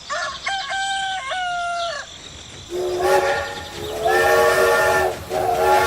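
A rooster crows, then a multi-tone train horn sounds two long blasts.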